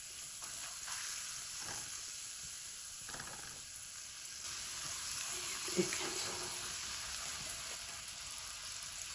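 A thin masala with a little water sizzling steadily in an aluminium kadhai over a low flame, while soft turnip-and-egg balls are set into it one by one, with a few faint knocks as they go in.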